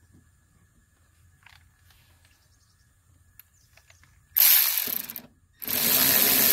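Cordless electric ratchet running in two bursts, a short one of about a second and then a longer run half a second later, driving in the bolts that hold a car window regulator and motor inside the door. Before it, a few faint clicks.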